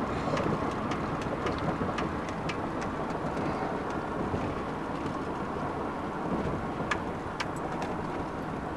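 Steady road and wind noise inside a car cruising at highway speed, about 65 mph, with a few faint clicks.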